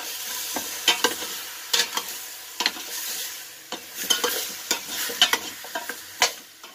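A metal spoon stirring pork bones with onion, tomato and ginger in a stainless steel pot over high heat: a steady sizzle, with the spoon scraping and knocking against the pot about once a second.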